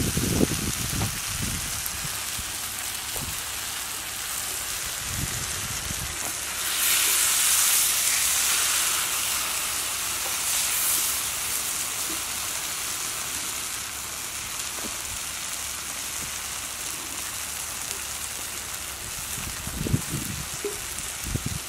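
Masala-coated snakehead fish sizzling on a flat iron pan over a charcoal fire, louder for a few seconds about seven seconds in. A spatula scrapes and knocks against the pan at the start and again near the end.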